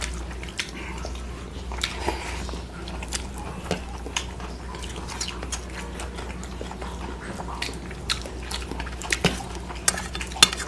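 Chewing and lip-smacking of mouthfuls of rice and fish curry eaten by hand, with frequent short wet clicks, over a low steady hum.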